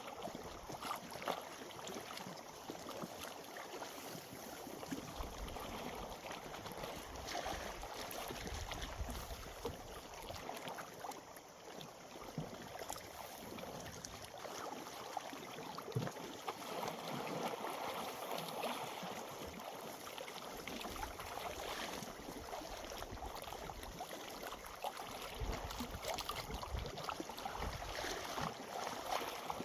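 Small waves lapping and splashing, an even wash of water with little clicks and splashes, with gusts of wind buffeting the microphone now and then.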